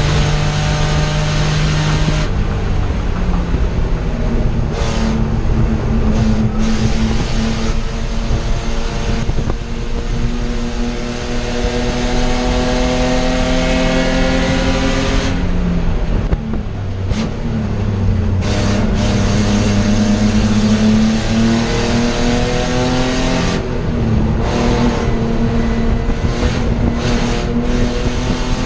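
BMW E30 race car's M20 inline-six, heard from inside the cabin, pulling hard under acceleration. The pitch climbs and drops back at each upshift, about 15 and 23 seconds in, with short lifts off the throttle in between.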